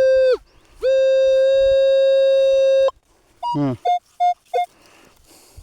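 Metal detector sounding a loud steady tone over a buried target. The tone breaks off just after it starts, comes back for about two seconds and cuts off sharply, then gives several short higher beeps about a second later.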